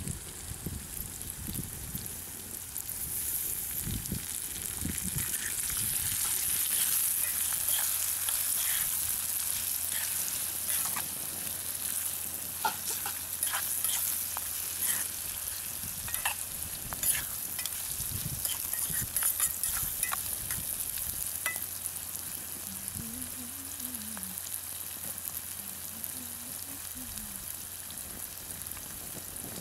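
Boiled eggs, drumstick pieces, onions and green chillies sizzling in oil in a cooking pot, stirred with a slotted metal spoon that clicks and scrapes against the pot.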